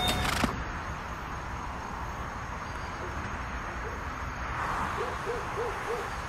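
A music tail cuts off about half a second in, leaving a low steady background with a thin high whine. From about four seconds in comes a run of short hooting notes, each rising and falling in pitch, about three a second.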